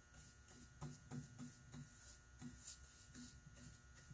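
Faint, quick swishes of a bristle paintbrush stroking polyurethane onto a stained wooden cabinet door, several short strokes a second, over a faint steady hum.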